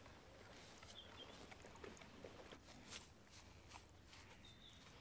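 Near silence: faint background hiss with a few soft scattered ticks and two brief, faint high chirps.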